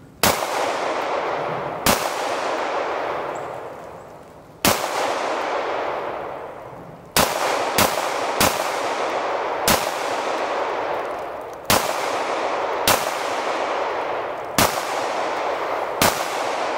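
Eleven shots from a Buffalo Cartridge BRG9 9mm pistol, fired at an uneven pace, some in quick succession and some a couple of seconds apart, each trailing off in a long echo.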